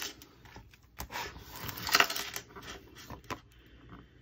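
Handling noise as a flexible tape measure is laid along a diamond painting canvas with its clear plastic cover film: crinkling and rustling with a few sharp clicks, the loudest rustle about two seconds in.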